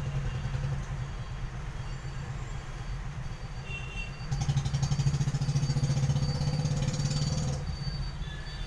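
A motor vehicle engine running steadily. It grows louder and fuller for about three seconds from the middle, then drops back.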